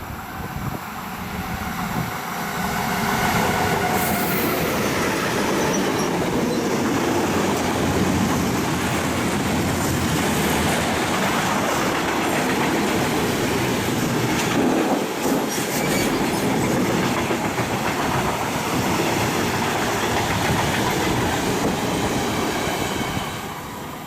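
A train passing close by with its wheels clattering over the rail joints. It swells up about two seconds in, holds loud for about twenty seconds, and fades near the end.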